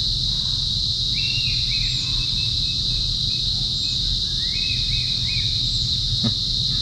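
Steady high-pitched insect chorus, with a few short bird calls and a single click near the end.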